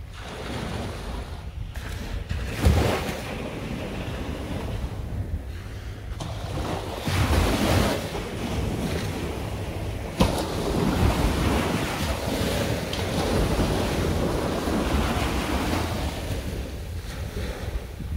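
Small waves washing up onto a sandy shore and drawing back, the surf swelling and fading, with wind buffeting the microphone in a couple of low thuds.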